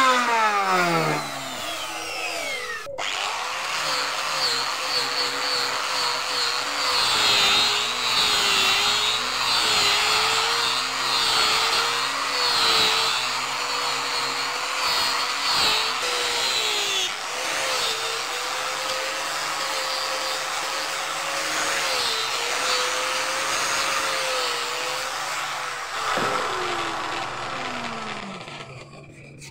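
Compact electric trim router running with a steady motor whine as it cuts along the edge of a wooden box, the pitch dipping and wavering under load. It starts about three seconds in and winds down near the end. In the first second another power tool's motor spins down.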